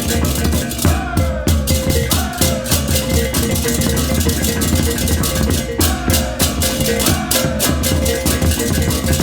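Balinese baleganjur gamelan playing loudly: many ceng-ceng cymbals crashing in a fast, dense interlocking rhythm over kendang drums and gongs, with a steady ringing metal tone held underneath.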